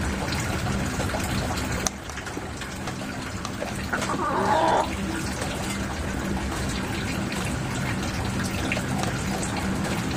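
Steady running, splashing water with a faint low hum beneath it. A short higher-pitched sound comes about four seconds in.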